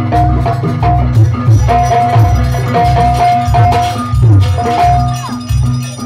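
Jaranan Buto dance music from a Javanese percussion ensemble: drums and gong-like low beats keep a steady rhythm under a held, repeating melody line, with rattling percussion on top.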